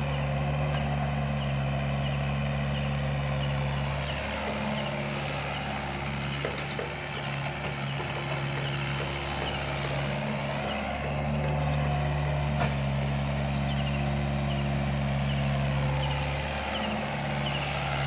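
Doosan DX55 mini excavator's diesel engine running under load as it digs and shifts soil, its note swelling and easing with the hydraulic work, with a couple of brief knocks.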